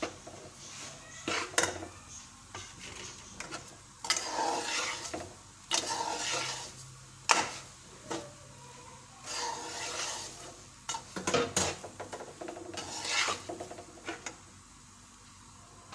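Metal spatula scraping and stirring dry roasted semolina with freshly added sugar in a metal pan, in irregular gritty strokes. The spatula clacks sharply against the pan a few times.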